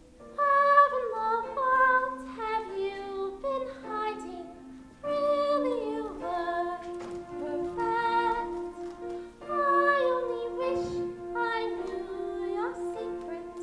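A young female voice singing a slow musical-theatre melody, holding notes with vibrato, over a sustained instrumental accompaniment. The singing pauses briefly a little before the middle and then carries on.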